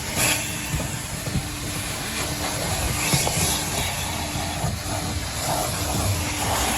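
Self-service car-wash vacuum running steadily, its hose drawing air and dust from the car's second-row seats, with a faint low hum under the rush of air.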